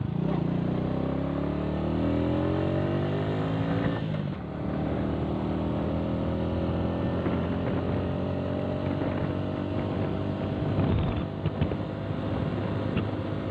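Small motorcycle engine accelerating. Its pitch climbs, breaks off briefly about four seconds in as at a gear change, then climbs again. Near the end it gives way to rushing wind and road noise.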